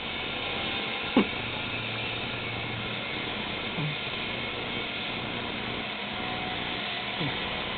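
Sleeping cat snoring: small falling squeaks with its breaths, about every two to three seconds, the one about a second in much the loudest, over a steady hiss.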